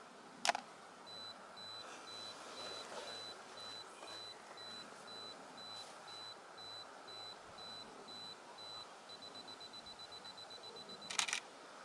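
A camera's self-timer counting down: a high steady beep about twice a second, speeding up to rapid beeps for the last two seconds, then a quick cluster of sharp clicks as the shutter fires. A single sharp click sounds just before the beeping begins.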